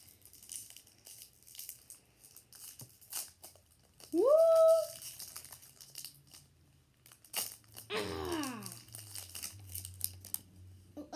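Crinkling and tearing of a booster pack's foil wrapper, with small clicks of handling. About four seconds in, a voice gives a short rising, held "whoo", the loudest sound; about eight seconds in, a voice slides downward.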